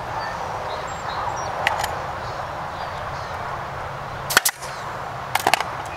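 Power stapler firing staples through wire mesh into a wooden frame: a sharp shot about four seconds in, then a quick burst of three or four more about a second later, with a lighter click earlier on.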